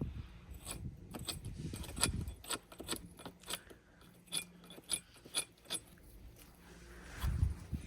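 Hammer tapping a threaded metal gate-hinge pin into a drilled hole: a series of light, irregular metallic taps, about two or three a second, some ringing briefly, with a duller thump near the end.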